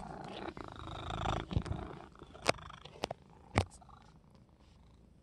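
Domestic cat purring close to the microphone, fading after about two seconds, with three sharp clicks in the middle.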